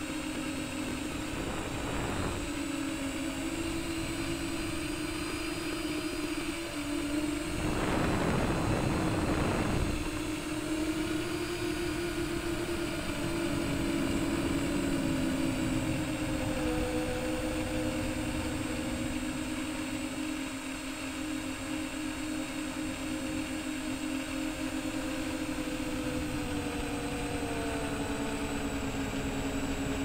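Brushless motors and triblade propellers of a modded MJX Bugs 3 quadcopter in flight, a steady multi-tone hum whose pitch drifts with throttle. A louder, rushing surge of throttle comes about eight seconds in and lasts about two seconds. Heard from a camera mounted on the drone itself.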